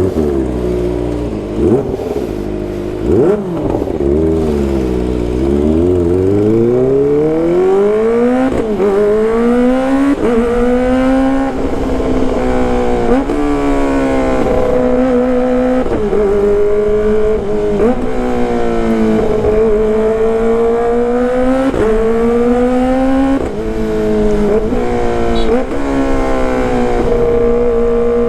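Kawasaki ZX-25RR's 250 cc inline-four through a loud aftermarket exhaust, ridden and revved hard. The pitch wavers low at first, then climbs steadily and keeps rising and dropping sharply several times, like upshifts under acceleration.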